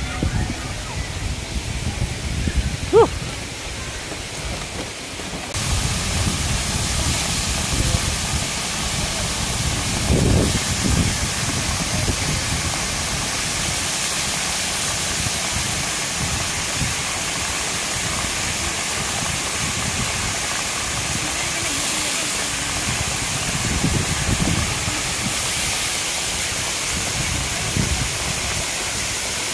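Waterfall pouring onto rocks: a steady rushing noise that gets much louder about five seconds in. A brief sharp squeak sounds about three seconds in.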